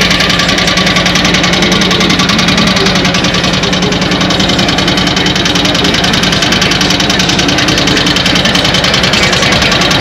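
Custom big-wheel bagger motorcycle's V-twin engine idling, loud and steady with a fast, even pulsing.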